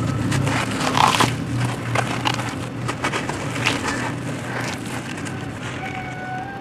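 Hands crushing a dry, crumbly sand-and-dirt chunk: gritty crunching with many small crackles as the grains break off and fall into a basin. A steady low hum runs underneath.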